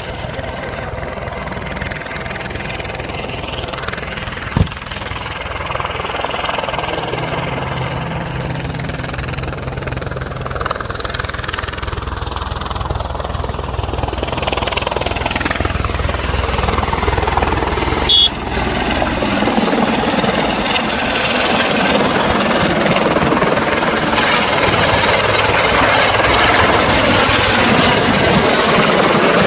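Helicopter turbine and rotor noise, a steady loud whir that grows louder over the stretch.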